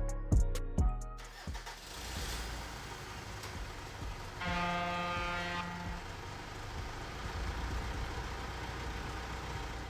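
Steady traffic and car noise, with a car horn sounding once for about a second midway. Drum hits from background music fade out in the first second.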